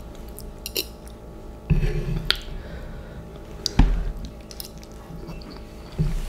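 A person chewing and biting spicy instant noodles close to the microphone: wet mouth sounds with a few short, sharper clicks and thumps, the loudest near the middle.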